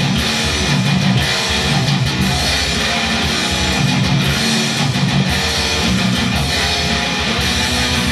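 Heavily distorted electric guitar playing a fast death metal riff, dense and unbroken.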